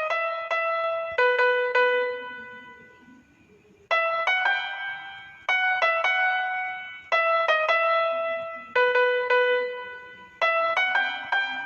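Piano playing a mobile ringtone melody: a short phrase of quick notes ending on a held note that rings and fades, repeated several times with a brief pause about three seconds in.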